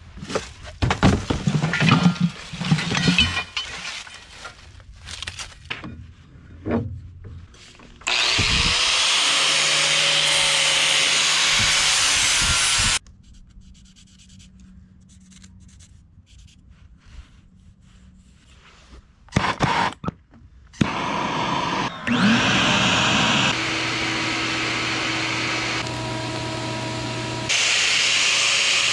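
Metal stock clattering and knocking as it is sorted from a scrap pile. Then an electric angle grinder spins up and cuts flat steel bar, twice, with a quiet gap between; the second cut changes pitch and level a couple of times as it bites.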